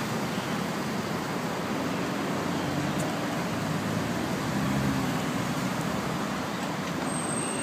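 Steady road traffic noise: an even, continuous rush of passing vehicles.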